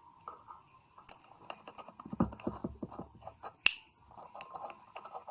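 A household electrical switch being handled during repair: a run of small plastic clicks and rattles, with one sharp click about three and a half seconds in.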